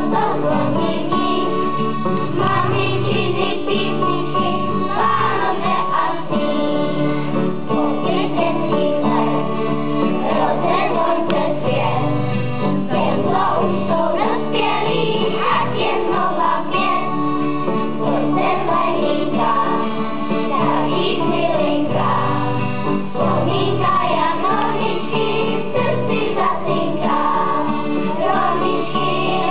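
Children's choir singing with a sustained instrumental accompaniment, one continuous song.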